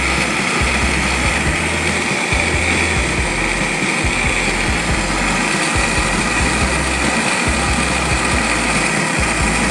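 Electric countertop blender running steadily at full speed, liquefying juice ingredients, a loud, even motor whine with a strong high-pitched hum.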